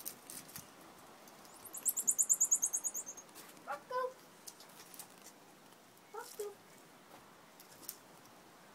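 Marmoset twittering: a rapid run of short, high-pitched chirps, about ten a second, lasting over a second. A couple of brief, lower calls follow in the middle.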